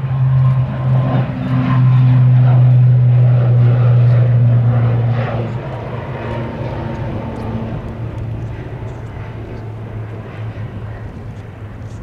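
ATR 72-600's twin turboprop engines at take-off power just after liftoff: a loud, steady low propeller drone. About five seconds in it starts to fade steadily as the aircraft climbs away.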